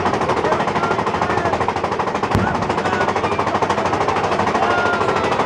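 Big Thunder Mountain Railroad coaster train clattering along the track, a fast, even run of rattling clicks. One sharp bang cuts through about two and a half seconds in.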